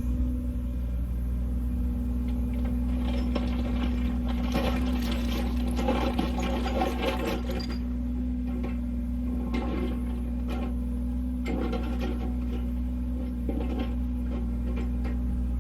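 An engine running steadily with a low, even hum, with irregular scraping and rattling noises over several seconds in the middle.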